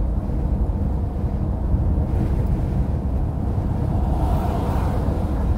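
Steady low rumble of a cargo van's engine and road noise, heard from inside the cab while driving, with a brief swell of noise about four seconds in.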